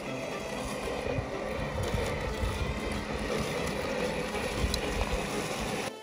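Anthbot Genie 600 robotic lawn mower running across long grass, its drive and blade motors going with a steady noise of cutting, over an uneven low rumble.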